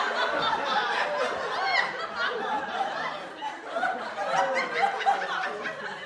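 A group of people laughing together, many voices overlapping in giggles and chuckles.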